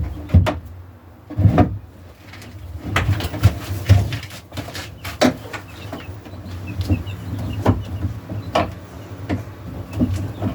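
Knocks and clatter of a nesting box and tools being handled, with chickens calling in the coop.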